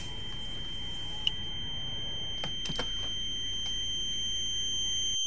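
A steady high-pitched ringing tone, the ear-ringing sound effect used after a gunshot in meme clips, slowly growing louder over a low hiss. A brief burst of noise comes right at the start, and a few faint clicks come partway through.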